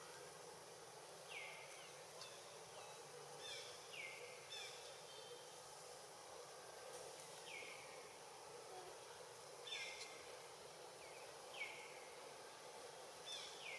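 Faint outdoor ambience with short, high animal calls every second or few seconds, each sliding down in pitch.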